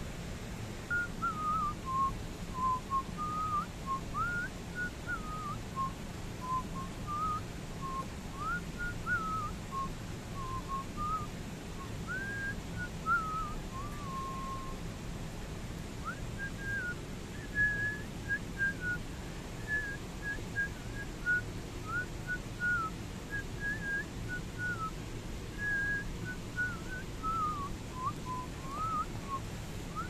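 Whistling: a long, tune-like run of short notes that slide up and down, with one held note about halfway through, over a steady low background rumble.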